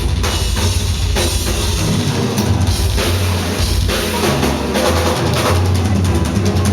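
Heavy metal drum kit solo played live: a dense stream of fast drum hits over steadily pounding bass drum.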